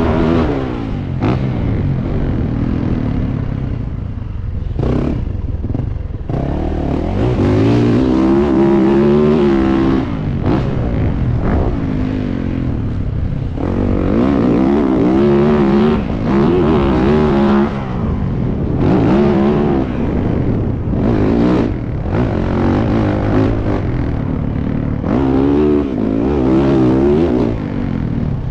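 Motocross dirt bike engine on a dirt track, heard up close from the bike, its pitch repeatedly rising under throttle and falling off as the rider rolls off, with short dips every few seconds.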